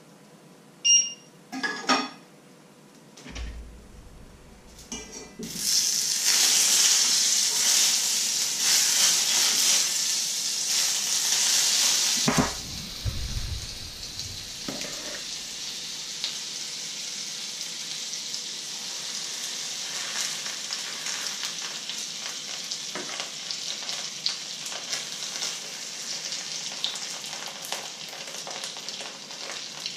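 Fat sizzling in a hot frying pan on an electric hob: a short beep about a second in, then a loud sizzle from about five seconds that settles after about twelve seconds into a steady, quieter sizzle. A ladle stirs batter in a metal bowl.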